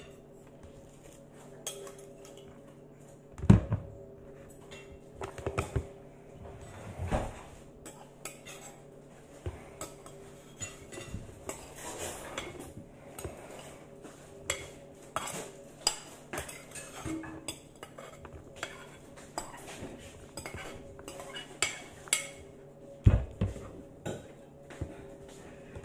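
Metal spoon scraping and clinking as chopped cucumber and apple are scooped off a cutting board into a glass jar. It makes many quick, irregular clicks and knocks, with two louder knocks, one a few seconds in and one near the end.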